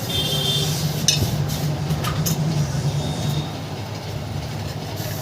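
Air-cooler electric motor running with a steady low hum after its bearings were replaced, with no grinding from the new bearings. A few light metallic clicks sound over it, and the hum drops a little about three and a half seconds in.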